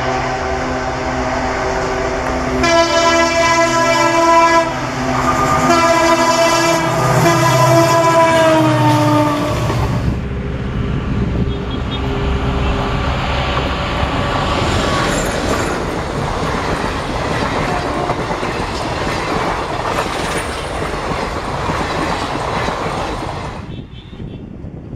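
ALCO WDG-3A diesel locomotive approaching with its engine running and sounding its horn in two blasts, the second dropping in pitch as it passes. The coaches then rattle and clatter past over the rails until the noise falls away sharply near the end.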